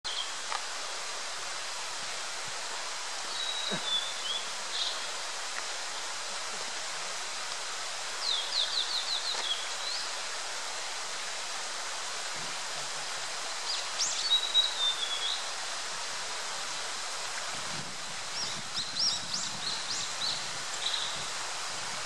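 Male blue-and-white flycatcher singing: four short phrases of high whistles and quick notes, about every five seconds, over a steady background hiss.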